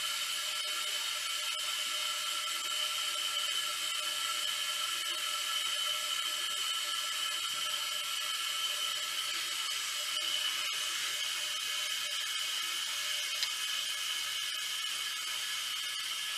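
Steady whirring hum of a small motor, with a high whine that stays at one pitch throughout; a light click about thirteen seconds in.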